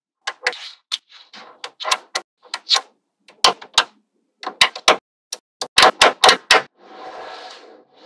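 Neodymium magnetic balls snapping together in sharp clicks, singly and in quick clusters, as rows of balls are pressed onto a slab built from them. A softer, longer rattle follows near the end.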